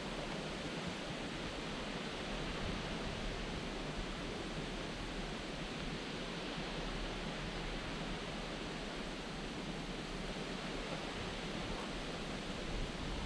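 Steady, even outdoor ambient noise with no distinct events.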